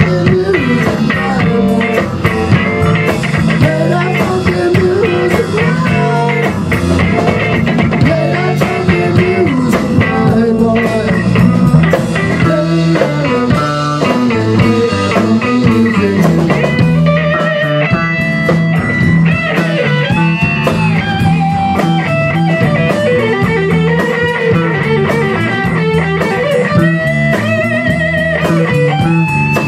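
Rock band playing an instrumental passage: electric guitar with bending notes over bass guitar and a Tama drum kit.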